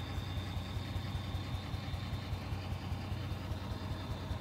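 A car engine left running, idling steadily: a low, even rumble with a faint steady high whine above it.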